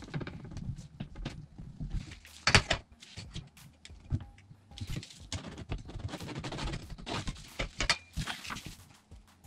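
Handling noise from a long aluminium straightedge ruler being lifted, slid and set down on a cutting mat over a sheet of vinyl: irregular rustles and light knocks, with one louder knock about two and a half seconds in.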